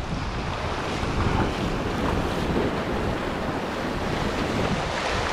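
Shallow ocean surf washing and foaming over the beach in a steady rush, with wind buffeting the microphone.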